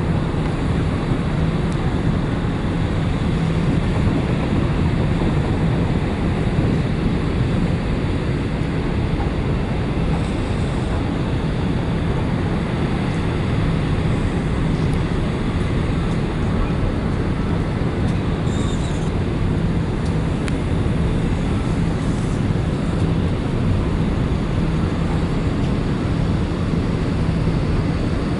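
Steady drone of a large car ferry under way: an even engine hum beneath a constant rush of wind and water.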